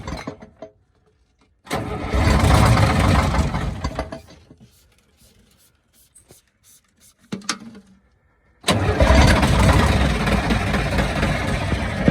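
1971 Insley excavator's diesel engine being cranked in repeated start attempts after years of sitting. A burst of about three seconds fades away, a short blip comes near the middle, and a longer steady burst follows from about three-quarters of the way in.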